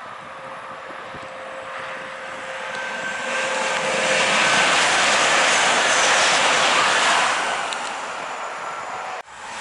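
ICE high-speed electric train passing at speed: a rush of wind and wheel-on-rail noise swells as it comes close, is loudest for a few seconds as it goes by, then fades. The sound breaks off abruptly near the end.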